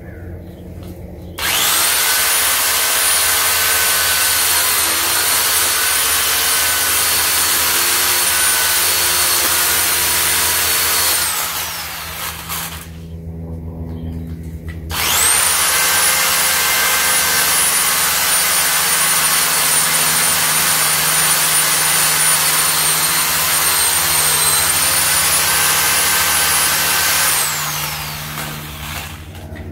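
Portland 7-amp electric pole chainsaw running in two bursts of about ten seconds each while trimming guava branches. Each burst starts abruptly with a steady high whine and ends by spinning down.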